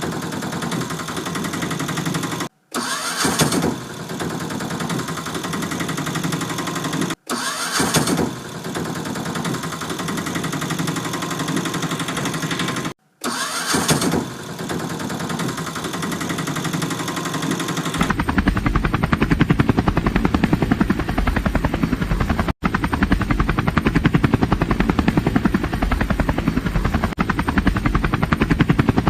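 Cartoon vehicle engine sound effect: an engine starting with a rising rev, then running steadily. It cuts out and restarts three times. About two-thirds of the way in it changes to a rapid, even beating like a helicopter's rotor.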